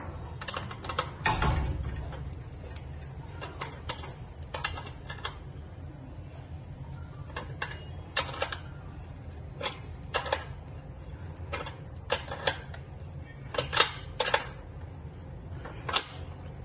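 Metal tool clicks and clinks as a wrench is fitted to and worked on a tool threaded into an exercise bike's crank arm. There are scattered sharp taps, several of them paired, and a louder scraping clatter about a second and a half in.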